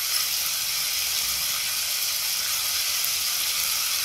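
Onion-tomato masala with ground spices sizzling steadily as it fries in a pan.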